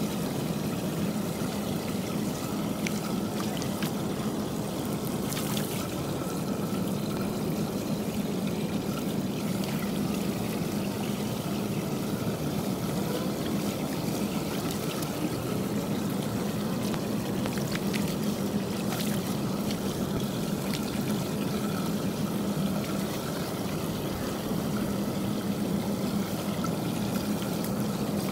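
Floodwater pouring and trickling steadily down through a curbside storm drain grate as it is cleared of leaves and twigs, with a few light clicks from the debris being handled.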